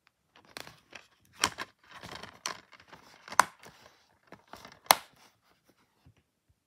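Plastic DVD case being handled and snapped shut: rustling broken by several sharp plastic clicks, the loudest about three and a half and five seconds in.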